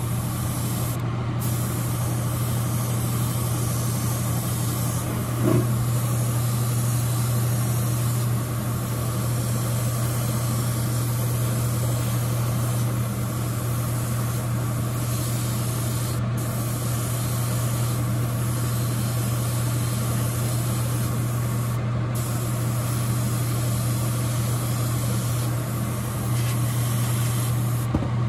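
Airbrush hissing as it sprays paint, the trigger let off briefly a few times, over the steady low hum of the spray booth's exhaust fan.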